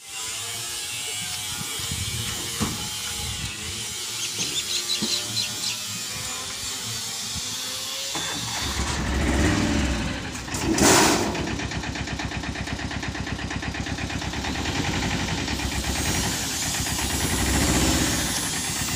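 A mini-truck's engine starts about eight seconds in and settles into a steady idle with an even, rapid pulse. A short loud burst of noise comes about three seconds after the start. Before the start there is only background noise with a few scattered clicks.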